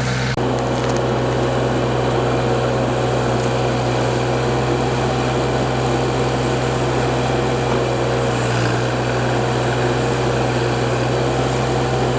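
Backhoe engine running steadily, a loud, even drone with a strong low hum, briefly broken by a short dip just after the start.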